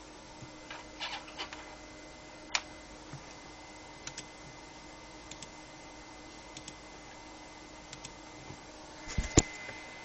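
A computer setup giving a faint steady hum, with scattered light clicks. A sharper cluster of clicks comes near the end, and a thin high whine begins there too.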